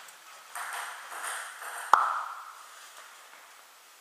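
A single sharp click of a table tennis ball striking a hard surface about two seconds in, with a brief ringing tail, over faint background hall noise.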